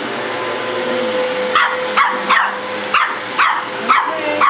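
Vacuum cleaner running steadily while a dog barks at it. The barks come a little over a second in, in a quick series of about six.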